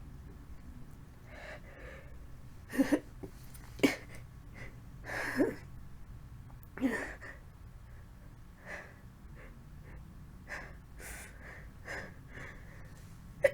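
A woman with a cold making a string of short, sharp catching gasps as a sneeze builds. The strongest gasps come about three to seven seconds in, with fainter ones after.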